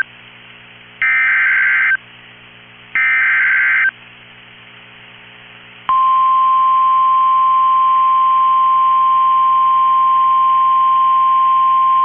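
NOAA Weather Radio Emergency Alert System signal: the last two of three raspy SAME digital header bursts, each about a second long with a second's gap between them, then from about six seconds in the steady 1050 Hz warning alarm tone. The header and alarm tone announce a new warning, here a severe thunderstorm warning.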